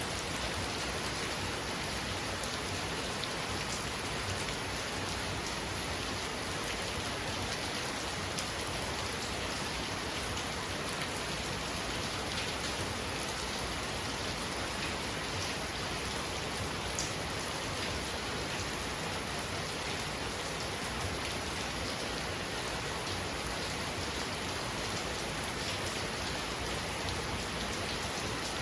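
Heavy rain falling steadily: a dense, even hiss flecked with the patter of individual drops.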